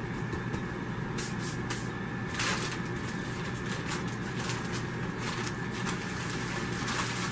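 Plastic bag of soil substrate crinkling and rustling as it is picked up and handled, in many short crackles from about a second in, over a steady background hum.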